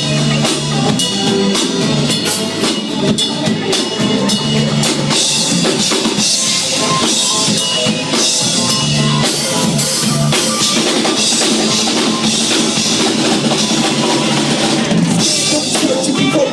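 Live band playing an instrumental break: a drum kit is prominent, with bass drum and snare hits driving a steady beat over a bass line.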